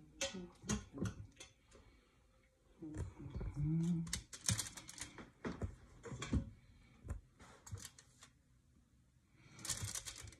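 Metal kitchen tongs clicking and tapping in irregular sharp clicks as cooked ribs are lifted out of an Instant Pot pressure cooker and set on a foil-lined baking sheet. A brief low vocal sound about four seconds in.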